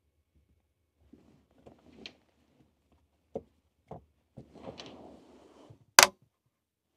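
Power cables being handled, with a few light knocks and some rustling, then one sharp click about six seconds in as the AC charging plug is pushed into the input socket of an EcoFlow Delta 2 portable power station.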